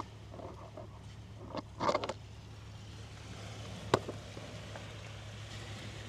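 A few short crunches of stones shifting underfoot on a pebble beach about two seconds in, and one sharp click a couple of seconds later, over a steady low hum.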